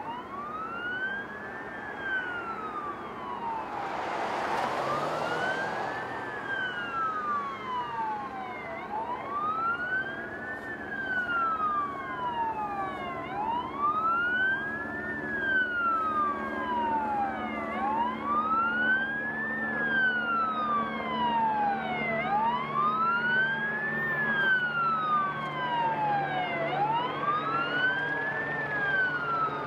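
Police sirens wailing, several at once, each rising and falling about once every four and a half seconds as the patrol cars pursue a stolen fire truck. A brief rush of noise comes about four seconds in.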